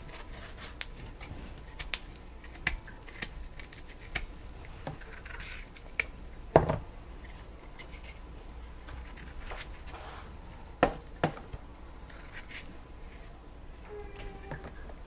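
Kitchen knife cutting and paring a piece of orange-fleshed food held in the hand: scattered small clicks and scrapes, with a few sharper knocks, the loudest about six and a half seconds in and two more close together near eleven seconds.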